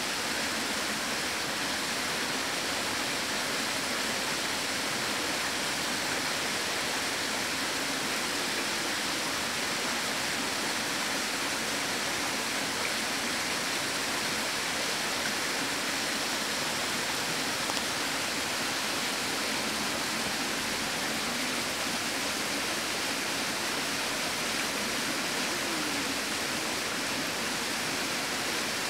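Steady, even rushing noise, like a constant hiss, with no distinct events.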